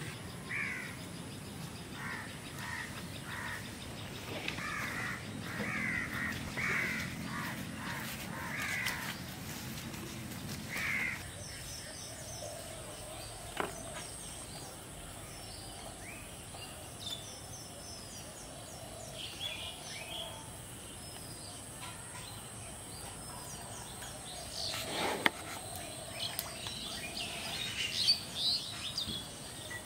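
Birds calling outdoors. A quick series of repeated calls lasts for about the first ten seconds, then gives way to scattered higher chirps over a steady high hiss, with one sharp click late on.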